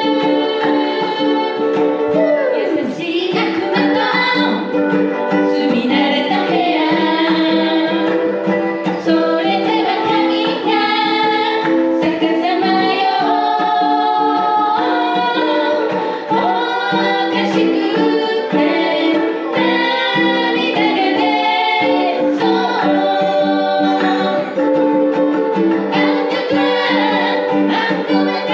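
Ukuleles strummed as voices sing together in unison, a live pop song played by a small ukulele group.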